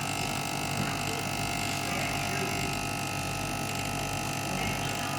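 Steady electrical hum with several constant tones, running unchanged.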